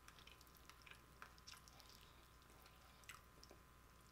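Faint chewing: sparse soft wet mouth clicks of someone eating tender slow-cooked barbecue rib meat.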